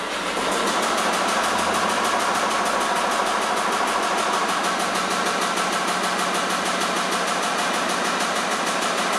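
Vibrating motors shaking two mounted video screens: a loud, steady, fast rattling buzz with an even hum beneath it.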